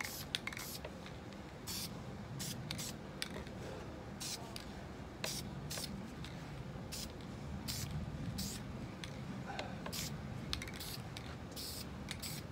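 Aerosol spray-paint can hissing in many short bursts, about one or two a second, laying a light mist coat of paint.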